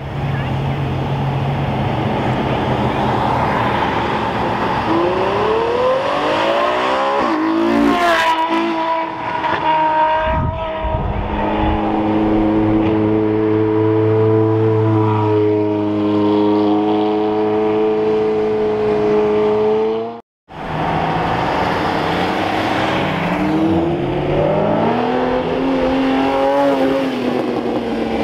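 Sports car engines revving and accelerating past one after another, the engine pitch climbing in rising sweeps, with a long, steady high engine note in the middle. The sound cuts out for a moment about two-thirds through.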